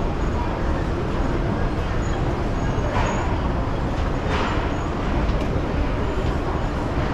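Street traffic noise: a steady rumble of passing road vehicles, with two brief louder swishes about three and four seconds in.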